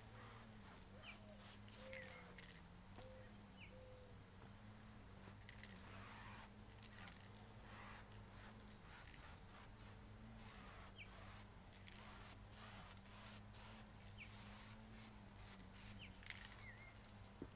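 Faint, short hisses of an aerosol spray paint can sprayed through a stencil, over a low steady hum, with a few faint high chirps.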